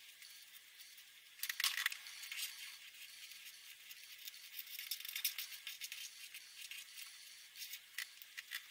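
Marker pen scratching on paper in quick, irregular strokes, beginning about a second and a half in; thin and hissy, with nothing in the low end.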